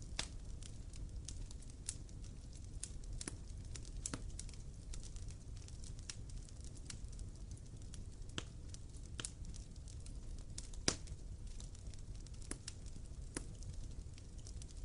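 Wood fire burning, with irregular sharp crackles and pops over a low steady rumble of flame. The loudest pop comes about 11 seconds in.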